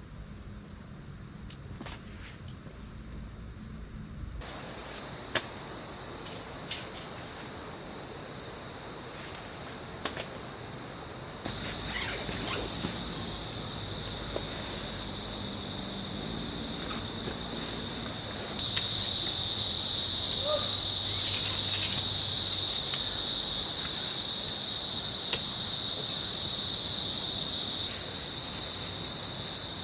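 Forest insect chorus: a steady, high-pitched shrilling that steps louder a few times and is loudest in the last third.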